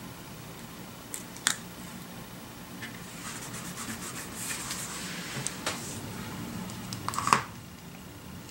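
Paper and sticker handling: fingertips rubbing and pressing a sticker down onto a planner page, with light rustling through the middle and sharp taps about a second and a half in and, loudest, near the end.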